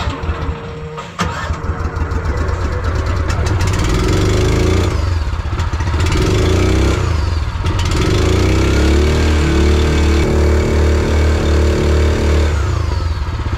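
Jet kayak's small motor running just after starting, its pitch rising and falling as it is throttled, then running more steadily; the jet drive is working despite fears that its intake was clogged with mud.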